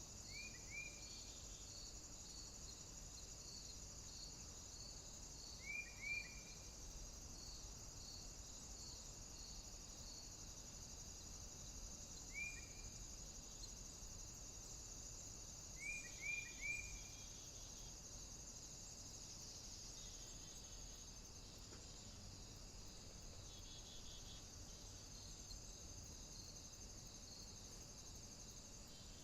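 Faint nature ambience of crickets and other insects: a steady high chirring, with a pulsing chirp about twice a second that stops about a third of the way through. Short sharp falling chirps, in groups of one to three, come four times in the first twenty seconds.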